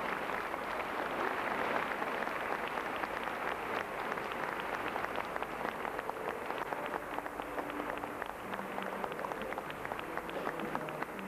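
Audience applauding, a dense patter of many hands that thins toward the end. A few low held notes from the orchestra come in about two-thirds of the way through.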